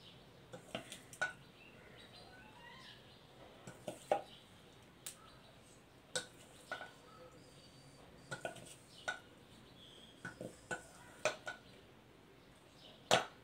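Spoon clinking and scraping against a dish while a layer of chopped vegetables is spread out: scattered, irregular light clinks, the loudest near the end.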